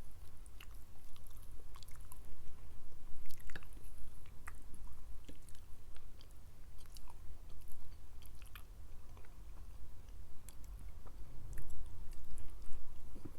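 Close-miked chewing of food: irregular wet smacks and sharp little clicks of a mouth eating, with no talking.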